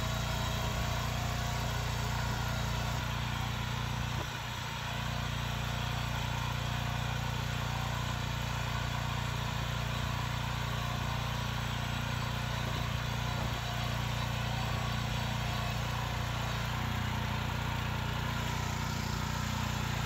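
Petrol engine of a ProGARDEN Campo U14e two-wheel tractor running steadily, with a brief dip in level about four seconds in.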